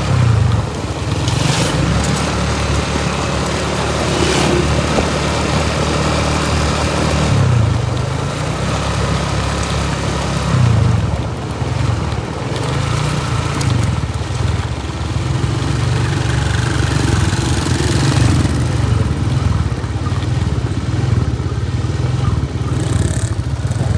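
Motorcycle engine running while riding, a low steady hum that swells and eases every few seconds, over a constant rushing noise.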